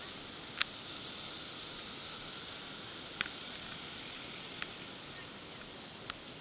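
Steady street hiss picked up by a small dashcam microphone, with four sharp clicks at uneven intervals.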